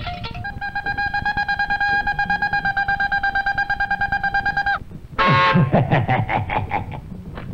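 A steady high tone, rapidly pulsing, held for about four seconds and then cut off. After a short gap comes a loud rattling burst that drops in pitch and breaks into fast, even ticking.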